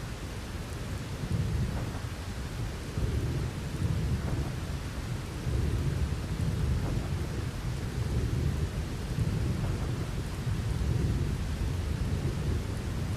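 Thunderstorm: a steady hiss of rain with deep thunder rumbling and rolling in repeated surges.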